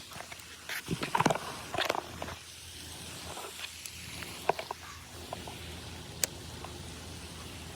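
Fishing reel and tackle handling: a quick cluster of clicks and knocks in the first couple of seconds, then a few scattered single clicks, one sharp one near the end, over a steady low background hum.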